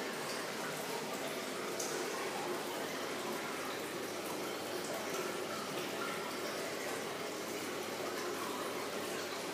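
Indoor water-wall fountain: water sheeting down a tall glass panel in a steel frame, a steady, even rush of falling water.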